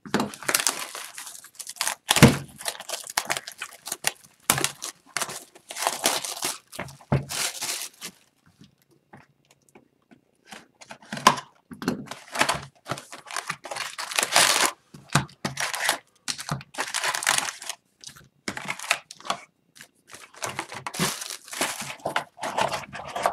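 Plastic shrink-wrap on a sealed hockey card hobby box being slit with a utility knife and torn and crinkled off, in irregular bursts with short pauses, followed by the cardboard box being opened and handled.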